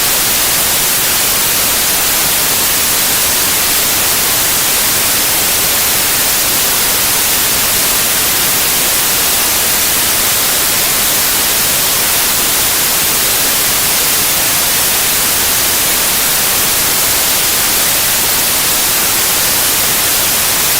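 Steady white noise: a loud, unchanging hiss, brightest in the highest frequencies.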